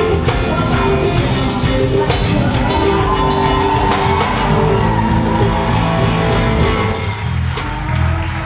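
A live rock band playing, with electric guitar and drums.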